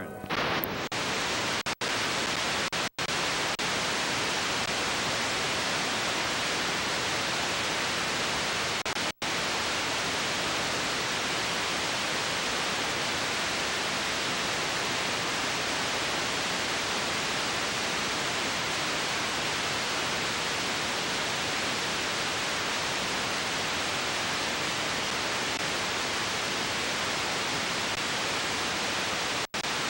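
Loud, steady hiss of VHS static where the recorded signal has dropped to snow, cutting out for an instant a few times, about two, three and nine seconds in and again near the end.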